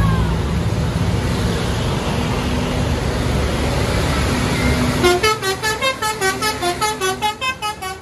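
Traffic and engines passing, then about five seconds in a bus's basuri musical horn starts playing a fast tune of short notes stepping up and down.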